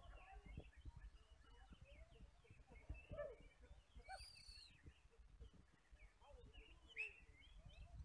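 Faint, overlapping chirps and whistled phrases from many caged Oriental magpie-robins (kacer) singing at once, with a brighter whistle about halfway through, over a low rumble.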